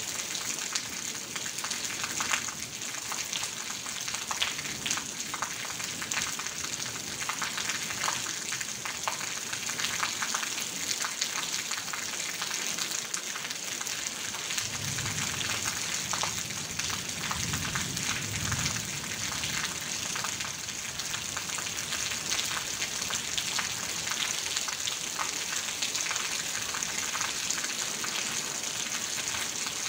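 Heavy rain falling on a tin roof, a dense steady patter of many small drop hits, with water pouring off the roof edge. A low rumble comes in for a few seconds around the middle.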